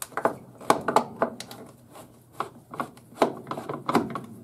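Irregular rubbing, scraping and clicking as hands pull and work the wiring against the furnace draft inducer's housing, about ten short knocks and scrapes.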